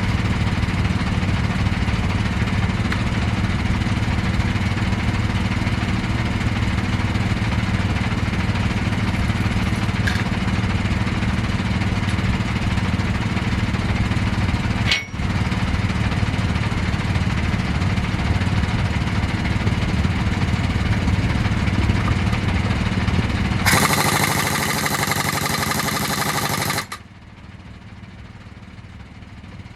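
An engine running steadily with a low hum, broken once about halfway through. Near the end a harsher, louder noise takes over, then the sound drops away to a much quieter level.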